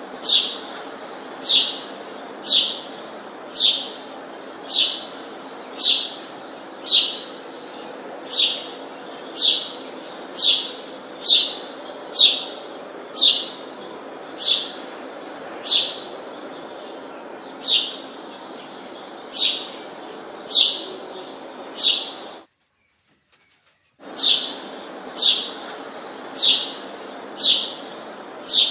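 A bird repeating a short, high chirp that falls in pitch, about once a second, over a steady background hiss. The sound cuts out for about a second and a half around two-thirds of the way through.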